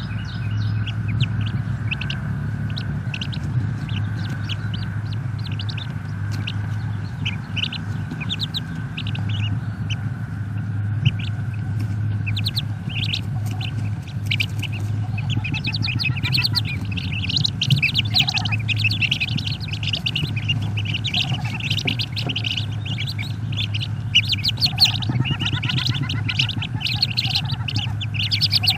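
Wood duck ducklings peeping in the nest box: many short, high peeps that grow denser and louder about halfway through, over a steady low electrical hum.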